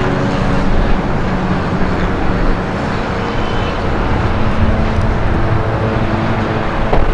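Steady city street traffic, with motor vehicle engines running and passing.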